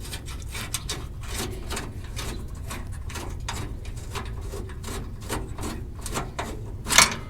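Hand ratchet clicking in a steady run of short ticks, a few a second, as it backs bolts out, with one louder metallic clack near the end.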